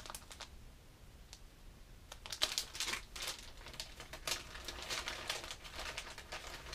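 Plastic lure packages and a clear zip-top bag crinkling as they are handled, faint and sparse at first, then busier rustling from about two seconds in.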